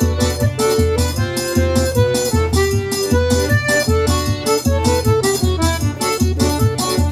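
Northeastern Brazilian accordion music: an accordion plays the melody over a quick, steady beat with pulsing bass.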